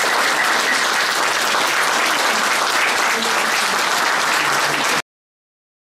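Audience applauding steadily, cutting off abruptly about five seconds in.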